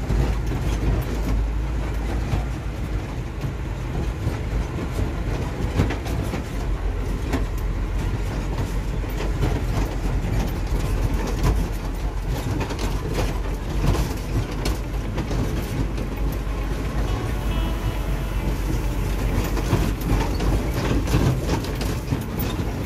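Cab interior of an Isuzu dump truck driving over a rutted dirt road: the diesel engine runs steadily underneath a constant clatter of rattles and knocks from the cab and body jolting on the bumps.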